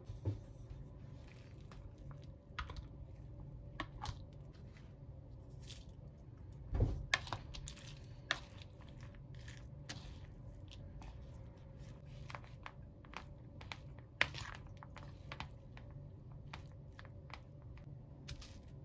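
Close kitchen handling sounds: a spoon clicking, tapping and scraping against a bowl as cooked rice is mixed with herb flakes, plastic containers and plastic wrap handled, with a louder knock about seven seconds in. A low steady hum runs underneath.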